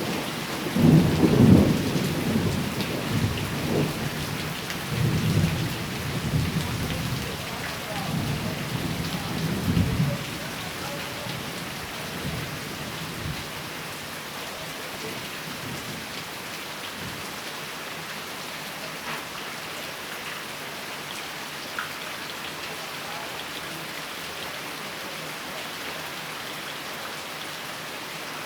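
Steady rain falling, with a long rolling rumble of thunder that swells in several waves through the first ten seconds or so and dies away, leaving the rain alone.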